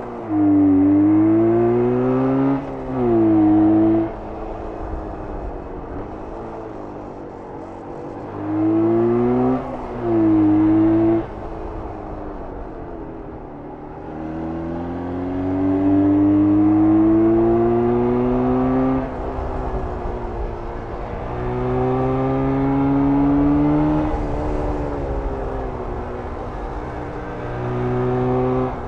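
1994 Jawa 350 type 638 two-stroke twin engine pulling the bike through the gears. The pitch climbs under throttle, then drops sharply at each shift or lift-off, with quieter stretches of lower-revving running between the loud pulls.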